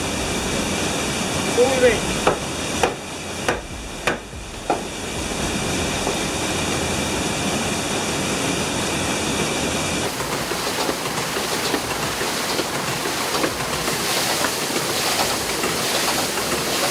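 Water rushing steadily in the mill's stream. In the first few seconds a series of sharp knocks comes at even spacing, a bit more than one a second.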